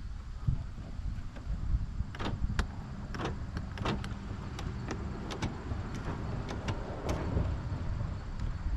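A car's door lock control clicked over and over, a dozen or so sharp clicks, with the lock failing to engage. A steady low rumble runs underneath.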